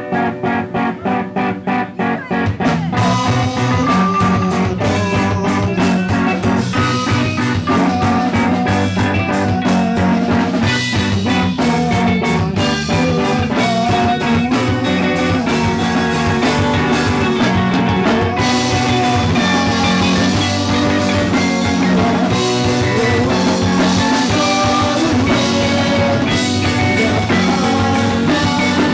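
Live rock band playing: a guitar picks a quick repeated figure, and about three seconds in the drums and the rest of the band come in, louder and fuller.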